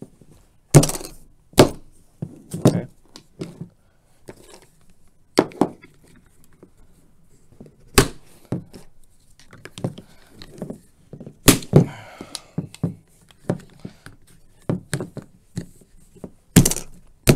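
Plastic filter-housing clips snapping onto the white plastic filter housings of a reverse osmosis unit, with the housings knocking on a wooden tabletop. There are about ten irregular sharp clicks and knocks, the loudest about a second in, at about eight seconds, at about eleven and a half seconds and near the end, with quieter plastic handling noise between them.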